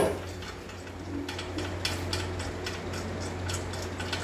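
Light metal clicks and ticks, irregular and a few a second, growing more frequent about halfway through, as the nut and bolts are undone on a platform weighing scale's pole mount.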